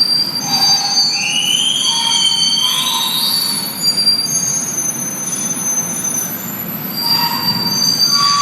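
Metal wheels of a parts cart squealing as a tug pulls it out of an industrial oven: several shrill overlapping squeals, one rising in pitch about a second in, over a low rolling rumble. The noise is like nails on a chalkboard.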